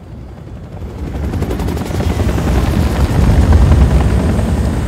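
Military helicopter approaching overhead, its rotor chop growing steadily louder over the first three seconds and then staying loud.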